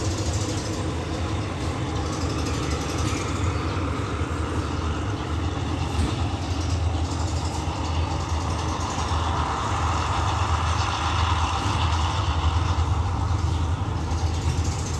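A diesel engine running steadily with a low hum. A broad rushing noise swells and fades in the second half.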